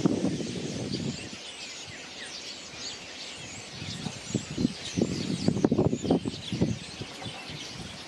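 A flock of European starlings chattering together: many overlapping thin whistles and squeaky calls, over bursts of low rumbling noise that are loudest in the second half.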